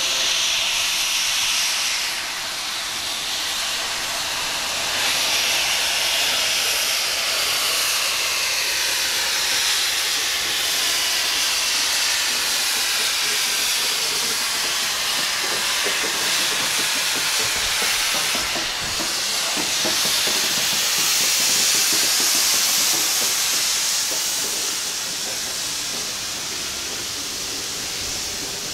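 NSW 35-class steam locomotive 3526 running through with a steady hiss of steam. Wheels of the heritage carriages click over the rail joints as the train passes in the second half.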